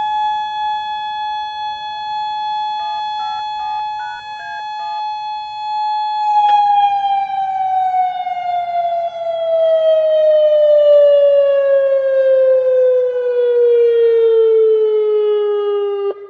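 Federal Signal Modulator 8032B electronic warning siren sounding the steady Alert tone. About six seconds in, the pitch begins a long, smooth slide downward as the signal winds down, then cuts off near the end.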